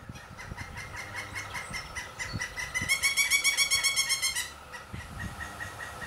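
Pileated woodpecker nestlings begging from the nest cavity: a rapid, steady chatter of about eight calls a second, swelling louder and harsher for about a second and a half midway.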